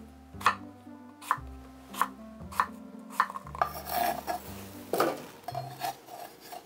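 Chef's knife cutting an apple on a wooden cutting board: several sharp knocks of the blade meeting the board, spaced irregularly about half a second to a second apart.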